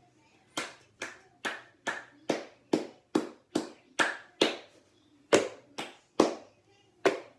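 Hand claps in a steady beat, about two a second, keeping time for a Samoan sasa seated dance.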